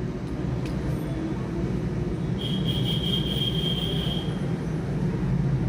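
Steady low background rumble and hum, with a single high-pitched steady beep starting about two and a half seconds in and lasting nearly two seconds.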